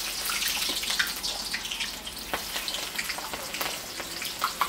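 Chopped onions sizzling and crackling in hot oil in an aluminium pot as they are added and stirred, with a steady hiss and scattered sharp pops.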